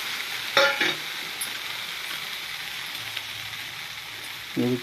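Thin rava dosa batter sizzling on a hot iron tawa, a steady hiss. A short burst of voice cuts in about half a second in, and speech begins near the end.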